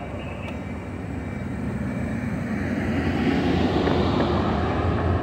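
Trinity Railway Express commuter train pulling out, its bilevel passenger coaches rolling past close by: a steady rumble of wheels on rail that grows louder about two seconds in as the train picks up speed.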